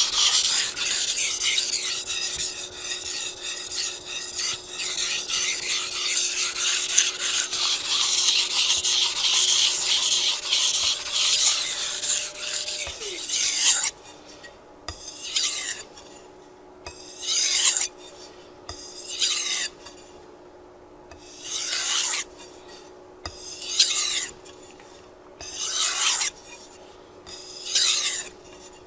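A Japanese chef's knife is sharpened on a fine #5000 whetstone. For about 13 seconds the blade scrapes back and forth quickly and continuously; then it changes to slower single strokes about every two seconds, each a rasping swish that drops in pitch.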